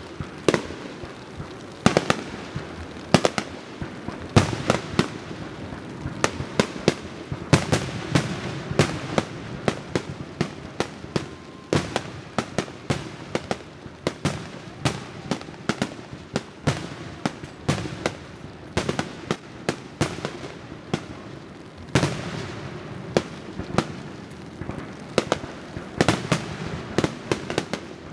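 Fireworks display: aerial shells bursting one after another in an irregular string of sharp bangs, often several a second, over a steady background of noise.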